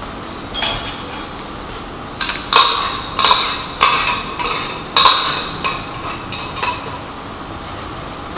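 A blender jar being knocked against a frying pan about nine times, a sharp knock every half second or so, to empty the last of the malunggay pesto sauce into the pan. A steady hum runs underneath.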